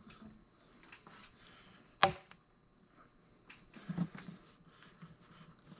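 Small handling noises of parts being fitted as an upper radiator hose and its clamps are worked onto an engine: one sharp click about two seconds in, then a few smaller knocks and rustles.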